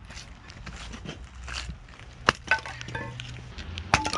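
An axe splitting firewood into kindling on a chopping block: two sharp chops about a second and a half apart, with lighter knocks and the clatter of split pieces between them.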